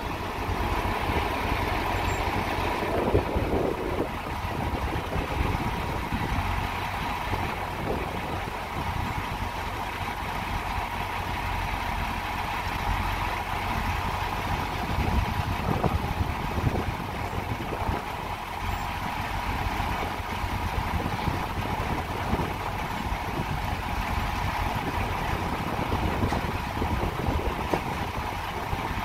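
Semi-truck diesel engine idling steadily, a low rumble with a steady whine over it.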